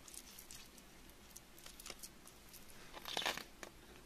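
Faint crackling and small clicks of a finger working wet, gritty soil, with a brief louder scrape about three seconds in.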